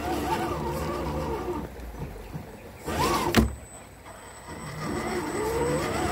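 Electric motor and gear whine of RC crawlers driving over loose stones, rising and falling in pitch with the throttle. The whine dies down in the middle, a single sharp knock comes about three and a half seconds in, and the whine climbs again near the end.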